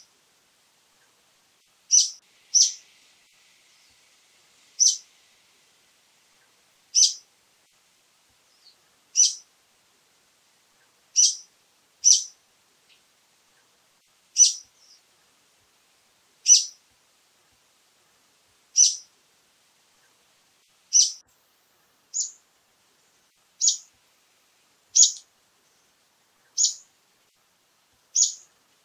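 Brown-eared bulbul giving short, sharp, high calls over and over, about one every two seconds, now and then two in quick succession.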